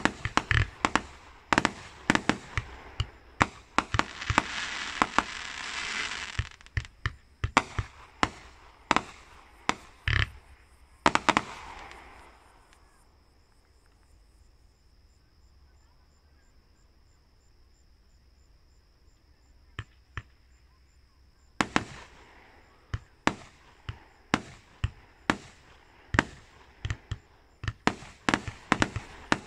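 A fireworks display firing a rapid string of sharp bangs and bursts, with a hissing crackle about four to six seconds in. The barrage stops a little before halfway, leaving a near-quiet lull with a faint steady high tone and a couple of lone pops. A new volley of quick bangs starts about two-thirds of the way through and runs on.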